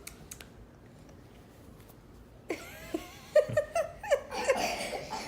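Young child making tongue clicks, a few just after the start, then from about halfway high-pitched babbling with short squeals and more clicks.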